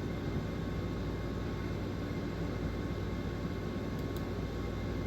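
Steady background hiss with a low hum and no distinct event, broken only by a couple of faint ticks near the end.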